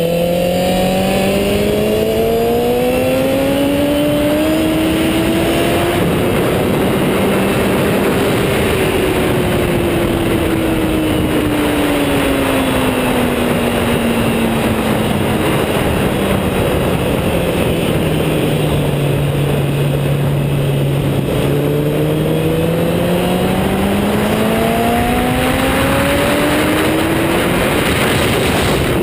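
Sport bike engine under way on a race track: its pitch climbs for about seven seconds, falls slowly through the middle as the rider rolls off, and climbs again near the end as he accelerates out. A steady rush of wind on the chest-mounted microphone sits under the engine throughout.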